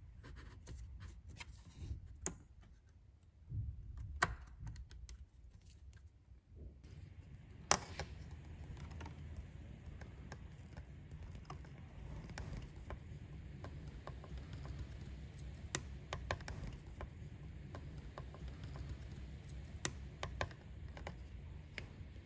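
Scattered small metallic clicks and taps of a toothed band clamp being handled and worked with CV boot clamp pliers on a rubber throttle body boot, a few sharper clicks standing out, over a steady low hum.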